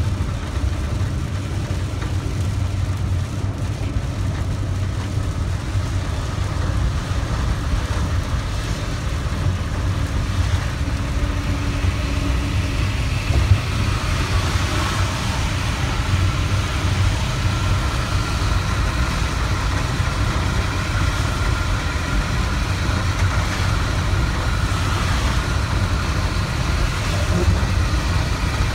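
Steady low rumble of a vehicle's engine and tyres heard from inside the cab while driving on a rain-soaked highway, with a hiss of wet road spray over it.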